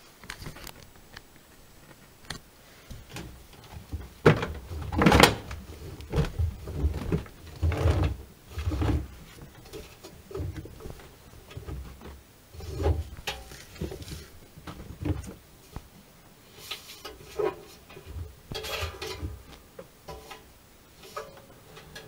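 Wet laundry being pulled by hand out of a front-loading washing machine's drum: irregular rustling, soft thuds of heavy wet cloth and knocks against the drum and door. The loudest thuds come about five and eight seconds in.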